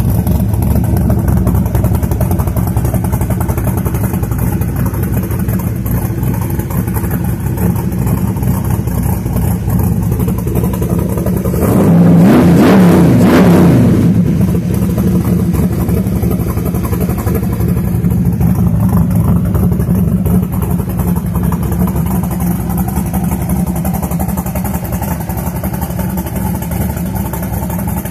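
500+ hp 357 cubic inch small-block Chevy V8 running through 3-inch Flowmaster Flow FX straight-through mufflers. It idles steadily, with one throttle blip about twelve seconds in: the revs rise and fall back over about two seconds, the loudest moment.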